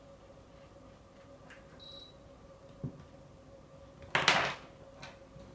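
A cat walking over a wooden desk knocks over small plastic toy soldiers: a soft thump about three seconds in, then a brief, loud clatter about four seconds in. A faint steady hum from an air purifier runs underneath, with a short high beep from its buttons about two seconds in.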